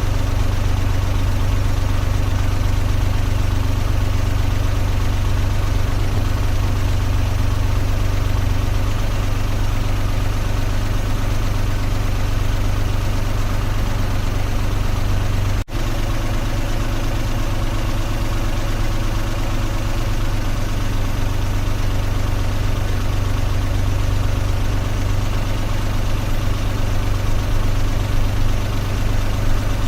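Car engine idling steadily with a constant low hum that neither revs nor changes pitch. The sound drops out for a split second about halfway through.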